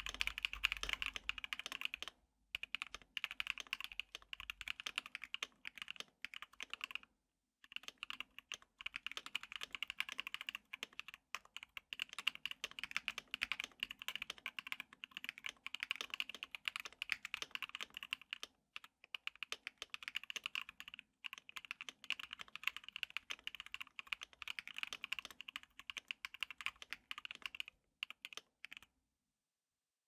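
Typing on a stock KBD67 Lite R3 mechanical keyboard with lubed NK Cream switches and lubed Durock screw-in stabilizers: a fast, clacky run of key presses, pausing briefly a few times.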